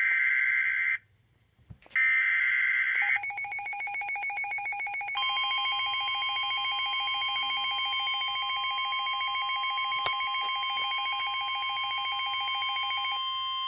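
Emergency Alert System signal on a weather-radio broadcast: two short buzzing bursts of the digital alert header, then a long steady alert tone. A second tone joins it about two seconds after it starts.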